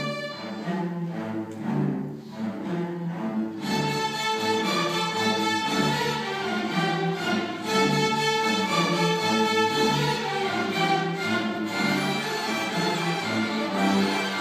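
String orchestra of violins, cellos and double basses playing together, bowed notes held and moving in several parts. The texture is thinner for the first few seconds and fuller and louder from about four seconds in.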